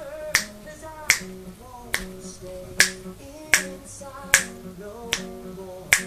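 Crisp finger snaps, evenly spaced about one every 0.8 seconds, eight in all, over a gentle plucked melody.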